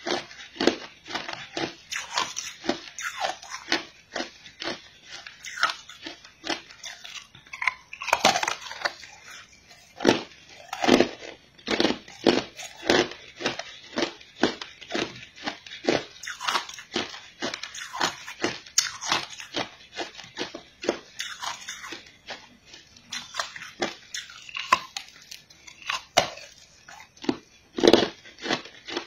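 A person biting and chewing a block of green ice, making a steady run of sharp, irregular crunches about one or two a second.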